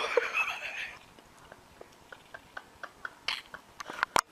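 A baby gives a brief high-pitched, wavering cry, then a run of soft clicks and smacks follows as a baby gnaws and sucks on a small plastic toy, with a couple of louder clicks near the end.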